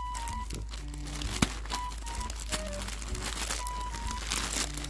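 Thin plastic mailer bag crinkling and rustling as hands pull it open, with one sharp snap about a second and a half in. Light background music with short plucked-sounding notes plays underneath.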